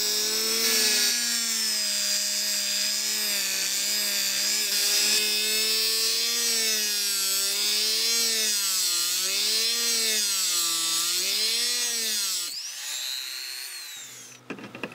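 Hand-held rotary tool (bormashina) spinning a small cut-off disc against a hard-alloy (carbide) plate clamped in a vise: a steady high motor whine whose pitch wavers up and down as the disc bites. About twelve seconds in the tool is switched off and the whine falls away as it spins down.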